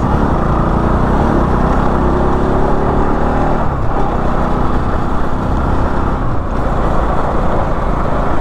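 A motor vehicle's engine running on the move, its pitch rising over the first few seconds as it speeds up, over a heavy low rumble.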